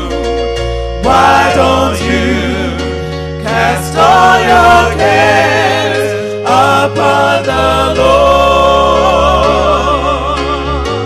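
Gospel song with voices singing long, wavering notes over sustained bass notes that change every second or two.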